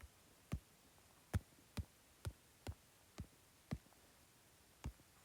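About eight sharp, quiet clicks at uneven intervals, from digits being entered into an on-screen sudoku with a mouse or keyboard.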